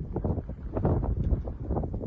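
Strong wind gusting across the microphone: an uneven, buffeting low rumble.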